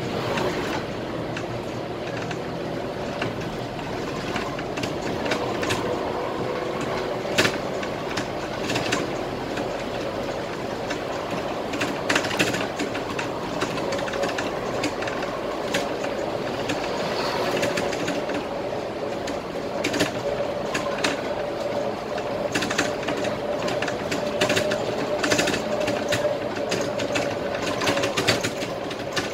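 Cabin noise of a Scania K320IA articulated bus under way: a steady engine and drivetrain hum with a held tone, over which scattered clicks and rattles of the cabin fittings come every few seconds.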